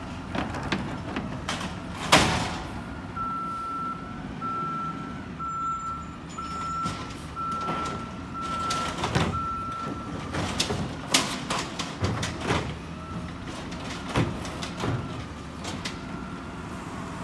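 Garbage truck working the street with its engine running: a sharp clank about two seconds in, then its reversing alarm beeps about seven times, evenly spaced, over some seven seconds, with scattered knocks and bangs from the truck and bins throughout.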